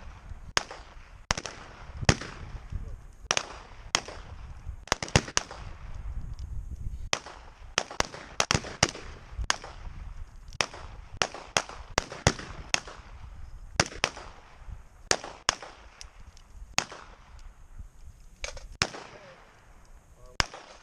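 Revolvers fired by several shooters along a firing line: dozens of sharp shots at uneven spacing, sometimes two in quick succession, thinning out near the end.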